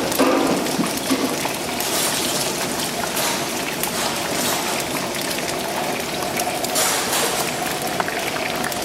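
Hot oil sizzling and crackling steadily around potato chips deep-frying.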